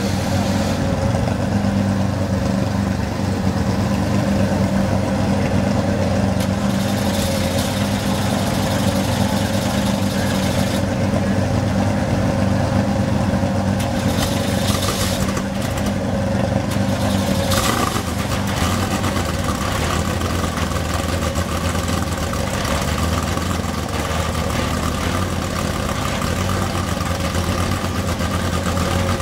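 Porsche 911 GT3 Cup race car's flat-six engine idling steadily, its note changing slightly a little past halfway.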